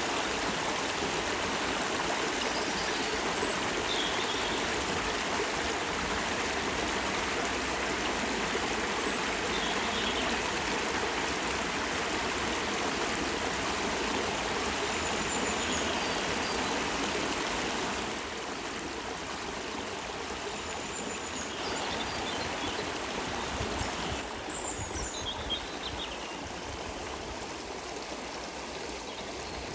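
Flowing water rushing steadily, like a stream or small weir, becoming a little quieter about two-thirds of the way through.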